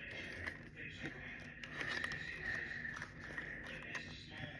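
Faint handling noise from a plastic alarm clock: scattered light clicks and scrapes, over a steady faint high-pitched hum.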